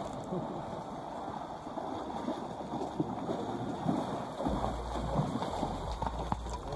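A horse wading through a shallow river, its legs splashing and churning the water steadily. A low rumble joins in about halfway through.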